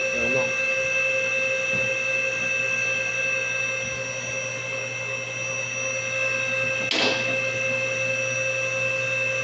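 Electric hydraulic pump motor of a two-post car lift running steadily with a hum and high whine while the lift is raised. A single sharp click comes about seven seconds in.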